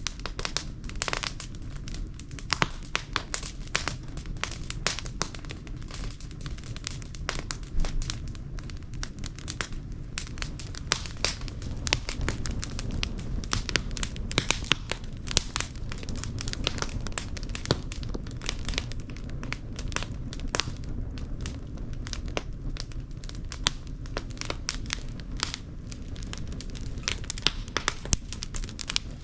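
Fire burning in a washing machine drum, crackling and popping constantly over a low rumble of the flames.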